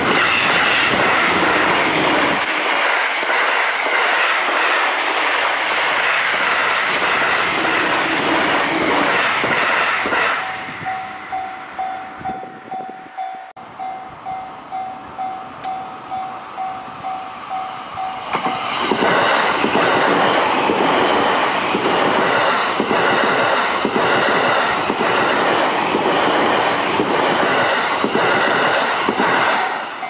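Electric commuter trains passing at high speed with wheels clattering: one rushes by during roughly the first ten seconds, a second from about two-thirds of the way through. Between them a level-crossing warning bell rings on its own in a steady repeating ding.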